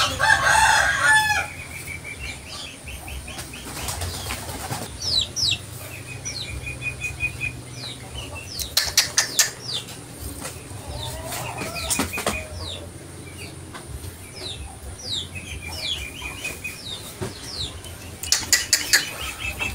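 Birds calling: many short high chirps that fall in pitch, fast trilling runs, a louder call right at the start, and a few short sharp bursts, around 9 and 12 seconds in and again near the end.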